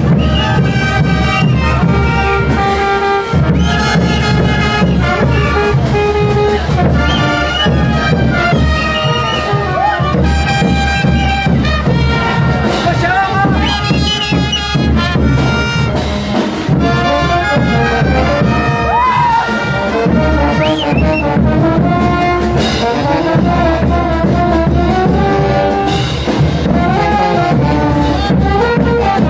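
Brass band playing carnival dance music, with brass melody lines held over a steady low accompaniment.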